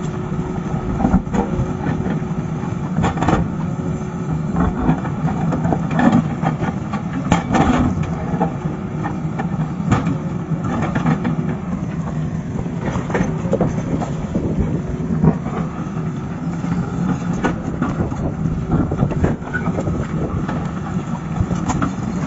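Excavator's diesel engine running steadily under load, with repeated short knocks and clanks at irregular intervals.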